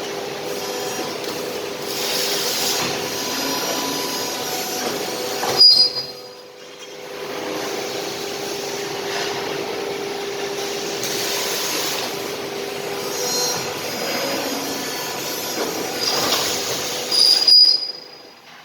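CNC tube bending machine with cutting and punching running, a steady mechanical hum. Twice, about six seconds in and near the end, a sudden loud metallic stroke with a short high squeal, each followed by a brief lull.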